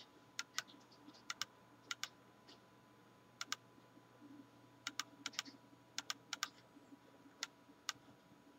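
Faint, scattered clicks of a computer keyboard and mouse, many coming in quick pairs, over a faint steady hum.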